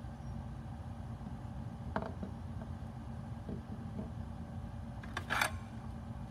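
Small electronic parts being handled by hand: a few faint clicks and one brief, louder scrape or rustle near the end, over a steady low hum.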